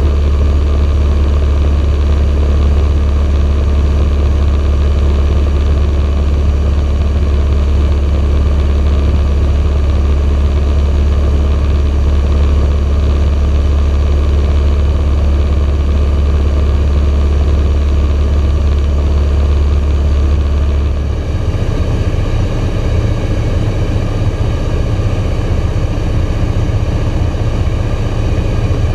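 Socata TB9 Tampico's four-cylinder Lycoming piston engine and propeller running steadily, a loud low drone heard inside the cockpit while the aircraft flies the circuit to land. About 21 seconds in, the drone shifts in tone and drops slightly in level.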